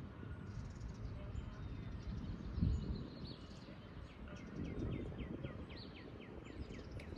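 Songbirds chirping outdoors. About halfway through, one bird sings a rapid trill of short down-slurred notes, roughly five a second. Under it runs a steady low rumble, with a thump about two and a half seconds in.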